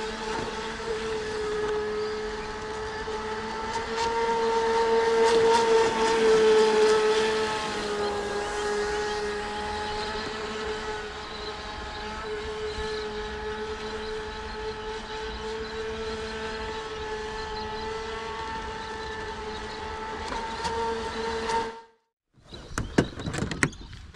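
Proboat Supersonicwake 48 RC boat running at full throttle, its Scorpion 4035 800kV brushless outrunner motor giving a steady high whine with several overtones that swells for a few seconds as the boat passes close. The whine stops suddenly near the end, followed by a few sharp clicks and knocks as the hatch is handled.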